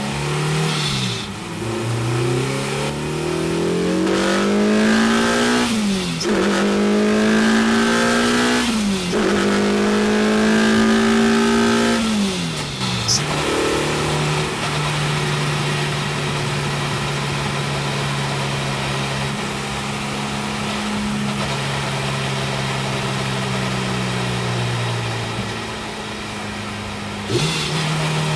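Honda Integra DC2's B20B inline-four VTEC engine pulling through the gears. The pitch rises in long sweeps and drops at each of four upshifts, then holds steady at cruise.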